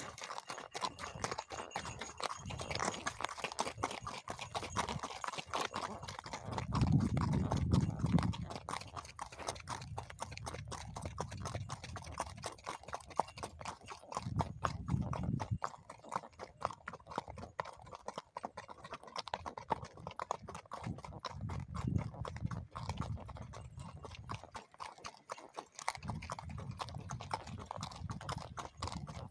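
Horses' hooves clip-clopping steadily on a dirt track at a walk, heard from the saddle, with low rumbling now and then.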